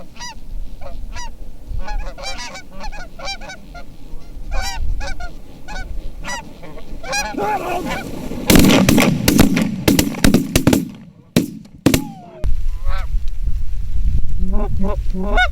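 A flock of geese honking, many short calls overlapping. About halfway through comes a loud flurry of sharp cracks and thumps lasting a few seconds, louder than the calls.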